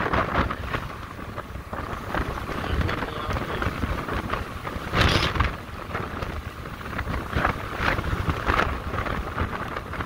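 Wind buffeting the microphone of an electric motorcycle in motion, a steady rumbling rush with road noise under it and no engine sound. The rush briefly grows louder about five seconds in.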